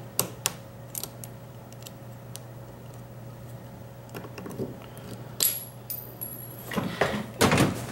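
Small metal clicks and scrapes of a tool prying the retainer clip off a Kwikset doorknob's lock cylinder, with a brief high metallic ring about five and a half seconds in and a busier run of clicking and scraping near the end.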